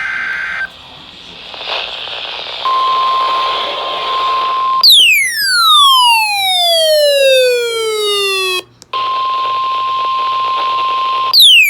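Weather-radio emergency alert received over the air with hiss: a brief warbling SAME data burst at the start, then the steady 1050 Hz warning alarm tone, cut off twice by a loud, falling pitch glide.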